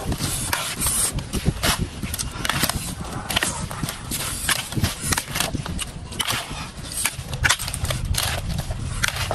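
A wooden spatula tossing raw shrimp with salt and spices on a stainless-steel tray: irregular clacks and scrapes against the metal, several a second, over a steady low rumble.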